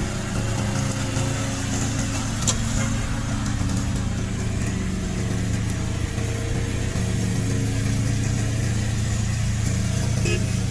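Remote-control slope mower's engine running steadily at an even speed.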